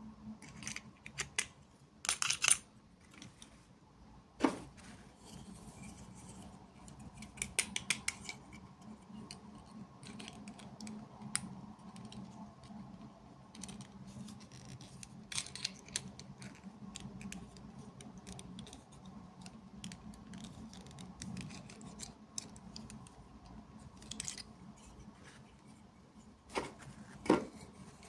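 Unboxing handling sounds: sharp snips and clicks with short rustly bursts as packaging and small plastic pieces of miniature toys are opened and handled, coming in scattered bunches with quiet between.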